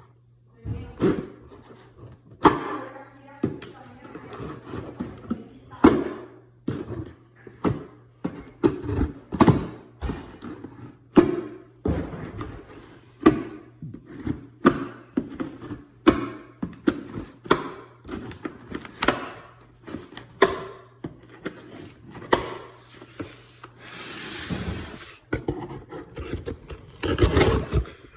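A cardboard box and its packaging being opened and handled: irregular knocks, scrapes and rustles, with a longer stretch of rustling near the end.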